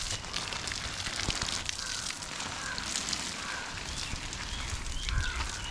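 Water spraying from a garden hose onto dry, sandy soil and plants: a steady hiss with crackling splashes and patters.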